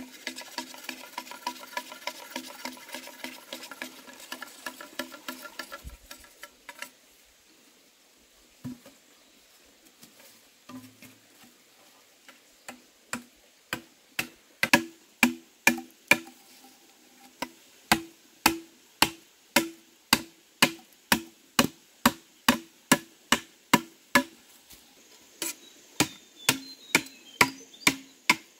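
A hand tool chopping wood in a steady rhythm, about two sharp strikes a second, each with a short hollow ring. Before that comes a stretch of rapid fine clicking.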